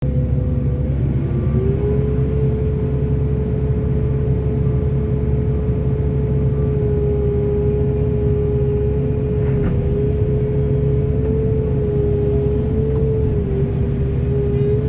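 Large excavator's diesel engine running steadily, with a steady whine over the low rumble.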